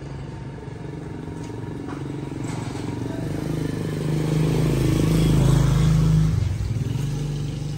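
A motorcycle approaches and passes close by. Its engine grows louder over a few seconds, is loudest about five to six seconds in, then fades.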